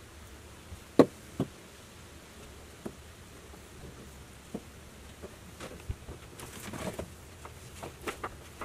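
Scattered light knocks and taps from candles and a thin stick being handled and set into earthen wall niches. Two sharp knocks come about a second in, and a quick cluster of small taps follows near the end.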